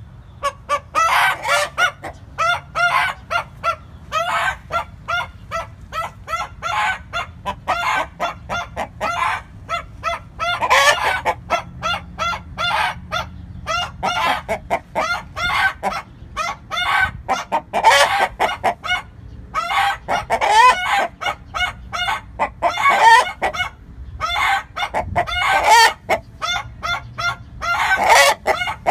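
Chickens clucking in quick, repeated short calls, with a rooster crowing loudly several times through it.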